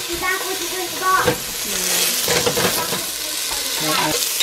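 Sliced onion tipped into hot oil in a stainless steel pot, sizzling as it starts to fry, the sizzle swelling about a second in.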